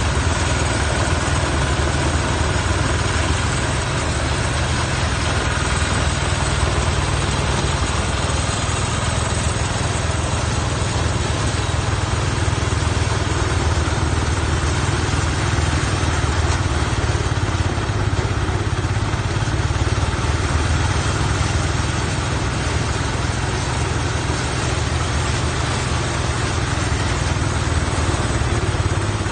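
Farm machine engine running steadily at an even speed, a constant low hum under dense machine noise.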